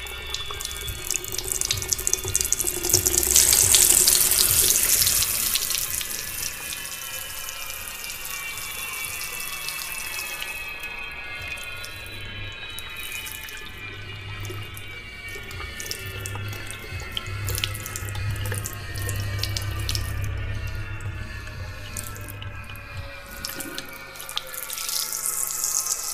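Water rushing and lapping along the hull of a sailing ketch under way, swelling into a louder hiss a few seconds in. Faint, steady, slowly falling tones run underneath.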